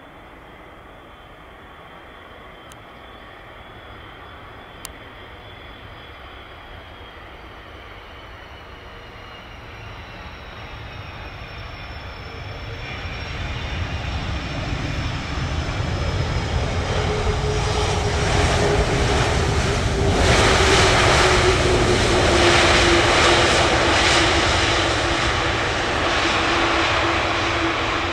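KLM Airbus A330-200 jet airliner coming in to land, its engine noise building up from faint to loud over about twenty seconds. A whine falls slowly in pitch as it passes, and it is loudest about two-thirds of the way through.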